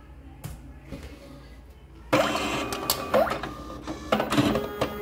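Smart31 PVC ID card printer starting a print job about two seconds in: motors suddenly start whirring, with repeated clicks and knocks as it takes in a blank card.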